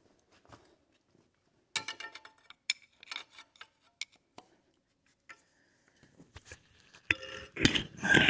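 Scattered metallic clinks and knocks of tools and parts being handled on a tractor, some with a brief ring. After a quiet stretch there is a louder burst of clattering near the end.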